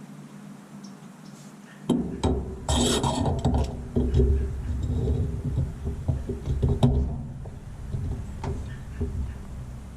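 Rubbing and scraping of washing-machine clutch parts being handled and fitted, with scattered light clicks and knocks, starting about two seconds in.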